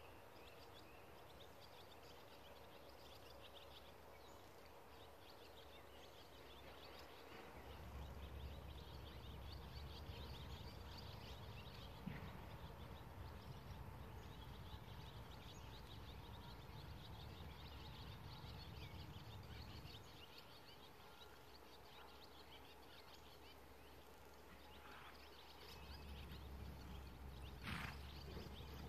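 Faint outdoor ambience of birds chirping and singing in the background, with a low rumble that swells in for a long stretch from about a quarter of the way in and again near the end.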